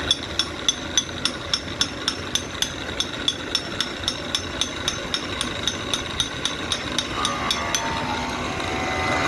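Woodturning lathe running with a steady rumble and an even, sharp tick about three and a half times a second. The ticking stops about eight seconds in.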